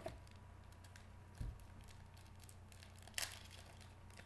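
Trading cards and their packaging being handled by hand: faint rustling and light clicks, a dull bump about a second and a half in, and one louder crinkling rustle about three seconds in. A faint steady hum sits underneath.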